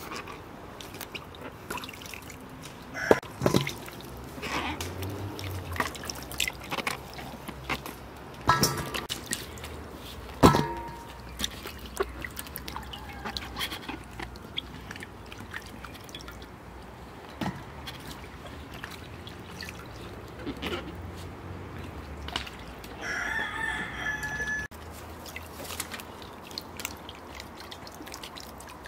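Scattered knocks and clicks of cooking work, with a rooster crowing once about three quarters of the way through.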